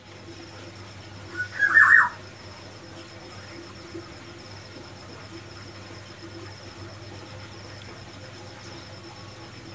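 White-rumped shama giving one short burst of quick, falling call notes about a second and a half in. Under it run a steady high-pitched trill and a low hum.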